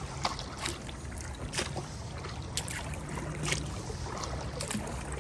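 Kayak paddle strokes: the blades dip and splash into the water about once a second, with a steady low rumble underneath.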